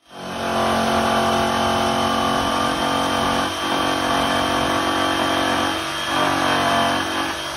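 Electric jigsaw running as it cuts through a thin wooden sheet, fading in at the start. Its motor pitch shifts a few times as the blade loads in the cut.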